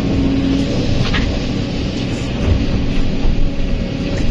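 Kobelco SK200 excavator's diesel engine running steadily under load with the hydraulics working, heard from the operator's cab, as the bucket swings and dumps dirt into a dump truck bed. A few louder thumps in the second half as the dirt drops into the truck.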